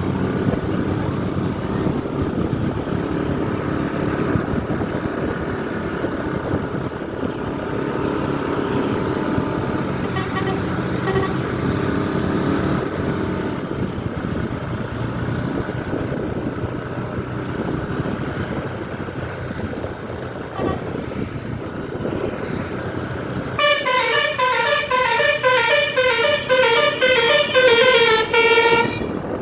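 Bus engine and traffic running steadily, then about 24 seconds in a telolet basuri multi-tone bus horn plays a loud melody of stepping chords for about five seconds.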